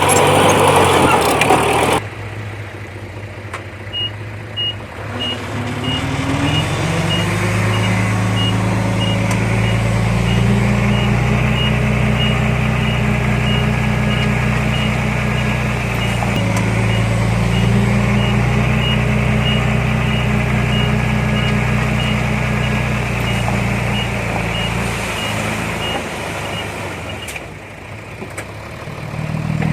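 Diesel engine of a heavy earthmoving machine running steadily under load while its reversing alarm beeps about twice a second; the engine picks up a few seconds in and the beeping stops near the end.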